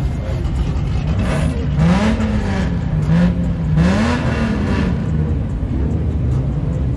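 Dodge Charger widebody's Hemi V8 revved twice while rolling slowly, the engine note rising and falling each time about two and four seconds in, then settling to a rumbling idle.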